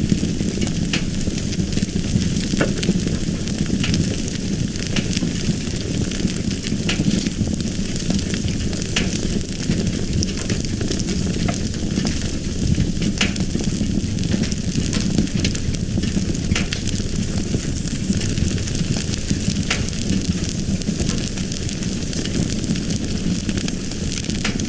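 Fire crackling steadily over a low rumble, with scattered sharp pops.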